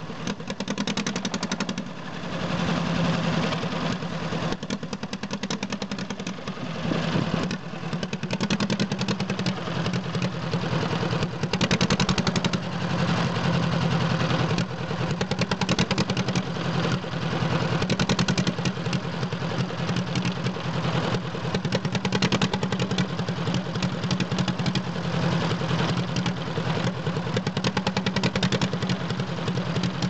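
Petter PH2 twin-cylinder air-cooled diesel engine running, a little uneven in the first few seconds and steady from about eight seconds in. It is running again after a long time standing unused.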